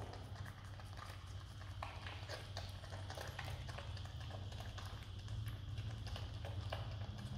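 Himalayan marmot chewing jackfruit: quick, irregular clicking and smacking of its mouth and teeth, over a steady low hum.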